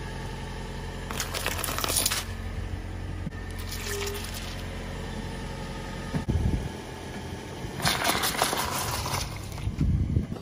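A car tyre rolling over a row of mandarin oranges, bursting them in crackling, squelching crunches over a steady low engine hum, then crushing a row of pineapples in a second loud crunching burst near the end.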